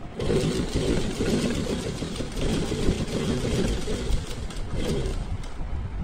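Sewing machine running, stitching through layered fabric with a fast, steady rattle of needle and mechanism; it eases off about five seconds in.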